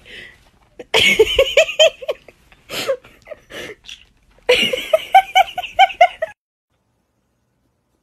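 Giggling laughter in two runs of quick, evenly spaced 'ha-ha' pulses, one about a second in and a longer one past the middle, with a few short sounds between; it cuts off suddenly.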